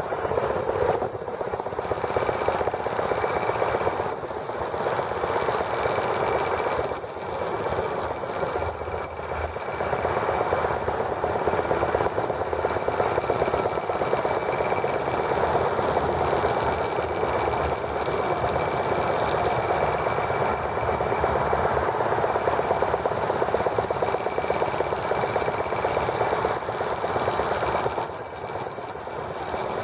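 Miniature gasoline engine of a T26 model tractor running fast, a steady rapid rattling patter with a thin high whine over it, dropping off briefly twice.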